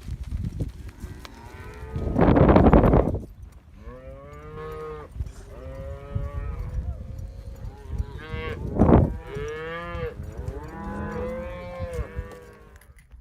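Several cattle mooing one call after another as the herd is driven along. The loudest bellows come about two seconds in and again about nine seconds in.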